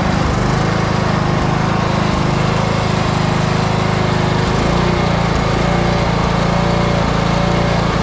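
Troy-Bilt Bronco riding tractor's engine running steadily and fairly smoothly on old, stale gas after sitting unstarted for a year.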